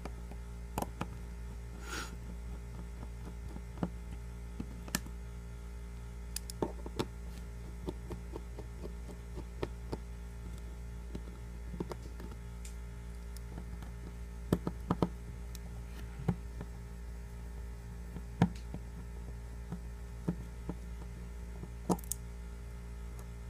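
Scattered small clicks and taps of a screwdriver and tiny screws as the back screws are taken out of a Samsung Galaxy S3 and set down, over a steady low electrical hum.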